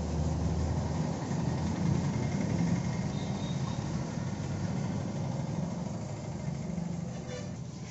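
A steady low mechanical rumble, like a running engine, fading a little near the end.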